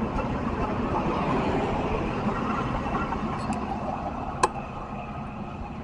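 Metra bilevel commuter cars rolling past and pulling away: a steady rumble of wheels on the rails that eases as the last car, the striped cab car, goes by, with one sharp click about four and a half seconds in.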